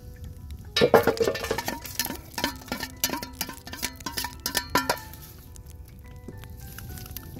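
A metal utensil clinking and knocking against a steel frying pan as a block of solid cooking fat is put in and broken up, a quick irregular run of strikes starting about a second in and stopping about five seconds in.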